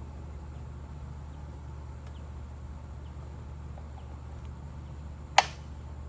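A steady low hum with one sharp click about five seconds in, from handling the Husqvarna 455 chainsaw while readying it to start.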